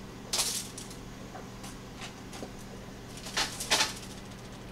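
Light kitchen handling noises: a few brief rustles and scrapes as breaded eggplant slices are moved around in a disposable aluminium foil pan, two of them close together near the end, over a low steady hum.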